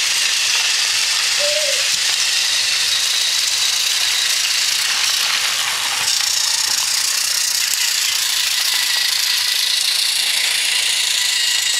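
Several battery-powered Thomas & Friends toy trains running on plastic track: a steady whirring, rattling hiss of their small electric motors and wheels.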